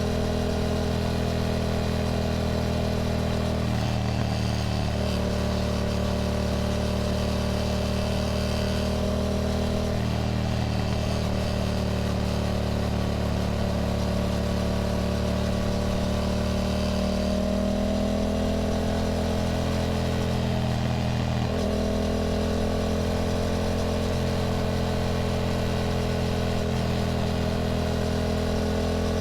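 Yamaha motorcycle engine running at a steady road speed, its note briefly breaking and shifting three times and rising slightly in pitch about two-thirds of the way through.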